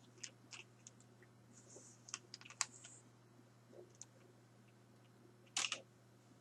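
Scattered light clicks and taps of hard plastic action figures being handled and set down, with a louder pair of clacks near the end, over a faint steady electrical hum.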